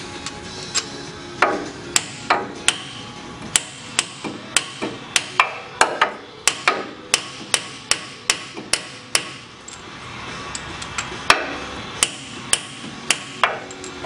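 Hammer tapping a metal installer tool to drive a steel-sleeved bushing into a Toyota 8-inch clamshell differential: a run of sharp metal-on-metal taps, about two to three a second, then a pause of about two seconds and five more taps near the end.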